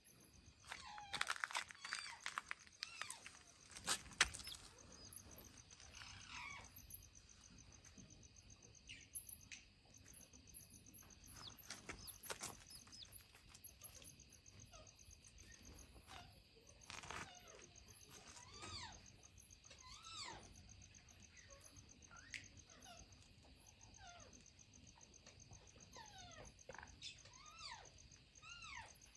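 Baby chicken chick peeping: faint, repeated high peeps that rise and fall in pitch, coming more often toward the end, over a steady high pulsing trill. A few sharp knocks or rustles in the first few seconds, the loudest about four seconds in.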